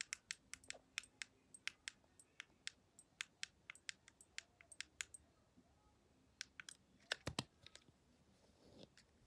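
Fingers pressing the controls of a small action camera: a rapid, irregular run of sharp little clicks for about five seconds, then a few more after a pause, one of them louder, about seven seconds in.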